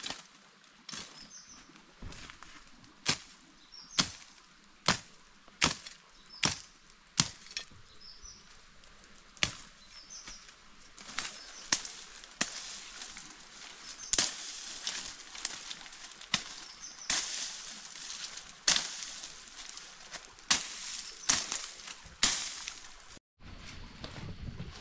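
A blade chopping into wood, with sharp strokes about once a second. After about eleven seconds the strokes come faster and less evenly, over the rustle of leafy brush being handled.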